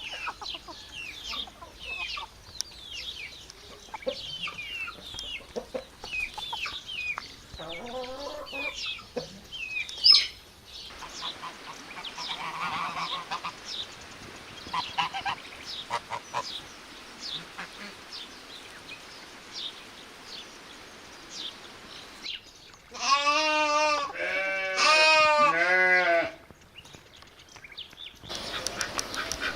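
Farmyard birds calling: many short high chirps through the first half, a brief sharp knock near the middle, then geese honking in a loud, rapid run of about three seconds near the end.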